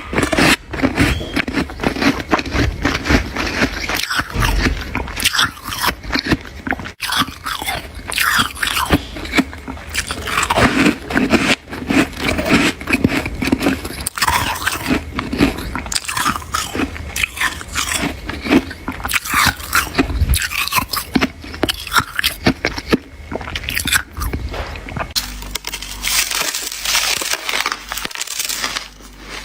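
Hard shaved ice and crushed ice being bitten and chewed close to the microphone: dense, irregular crunching. Near the end it turns to a thinner, higher crackle.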